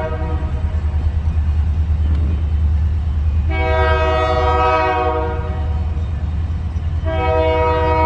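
Train horn blowing a chord in long blasts of about two seconds each: one ending just after the start, another about three and a half seconds in, and a third starting about seven seconds in, over a steady low rumble.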